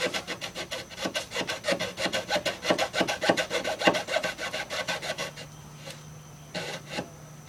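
Handsaw cutting wood in quick, short rasping strokes, stopping about five seconds in. Two light knocks follow near the end.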